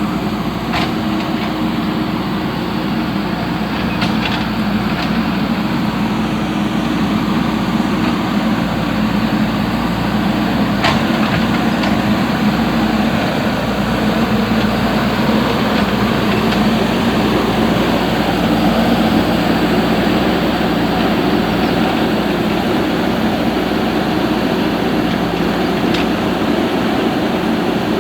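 Diesel engine of a JCB 3DX backhoe loader running steadily, with a few sharp knocks now and then.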